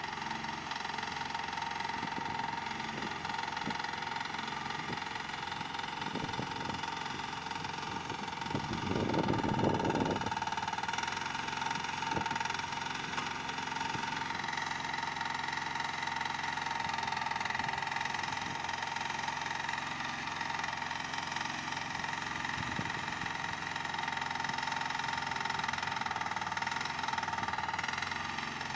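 Mini excavator's engine running steadily while the digging arm works, with a steady whine over the engine hum. About nine seconds in there is a louder rough stretch lasting about two seconds.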